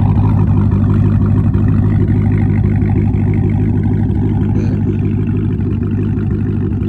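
Dodge V8 engine idling steadily, an even low hum that does not change.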